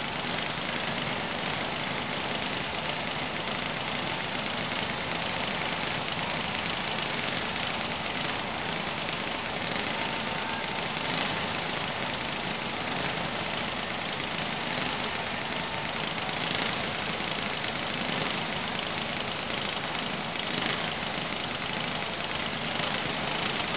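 Kart engines running, an even, steady engine noise with no clear revving up or down.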